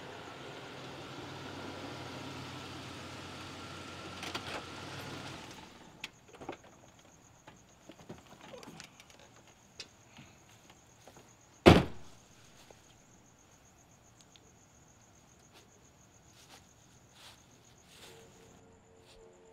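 Car engine running, then switched off about five and a half seconds in. A few small clicks and knocks follow, then a car door slams shut once, loudly, about twelve seconds in, with crickets chirping steadily behind.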